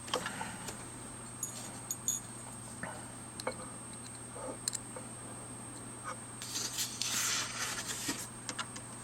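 Small plastic camera parts being handled and seated during reassembly of a Diana+ shutter: a few faint clicks and taps, and a brief scraping rustle about six and a half seconds in, over a steady background hum.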